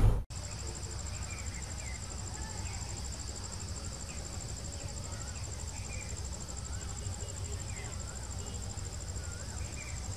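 Insects trilling steadily in a high, finely pulsing drone, with scattered short chirps and a low steady rumble underneath.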